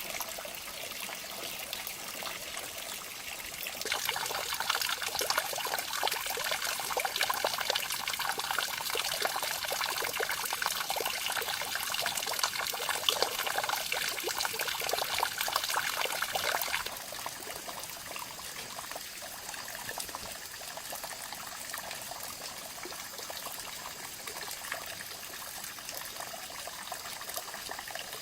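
Running water trickling and splashing, in a steady rush that turns abruptly louder and fuller about four seconds in and drops back to a quieter trickle at about seventeen seconds.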